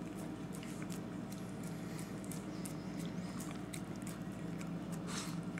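Miniature Pinscher licking ice cream: wet tongue smacks and small clicks over a steady low hum, with a short breathy noise about five seconds in.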